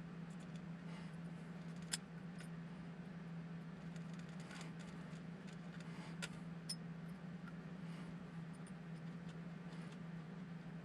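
Small metal screws, parts and a hex driver clicking and tapping while being handled on a 1/24-scale RC crawler, with a few sharp ticks about two seconds in and again around six seconds in, over a steady low hum.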